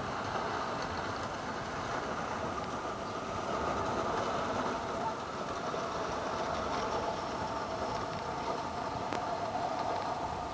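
Five-gang reel mower pulled across a lawn, its reels running with a steady whirring clatter.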